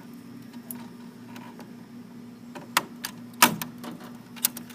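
Several sharp clicks and knocks as a cable connector is handled and plugged into a terminal on a control panel, the loudest a little past the middle, over a steady low electrical hum.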